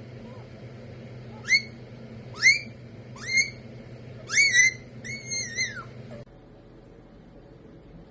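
Green parrot whistling: a run of sharp rising whistles about one a second, the last two longer and arching up and down. A steady low hum underneath stops about six seconds in.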